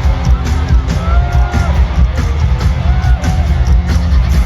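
Live pop concert music heard from the arena floor, with loud, heavy bass and drums under a held sung melody.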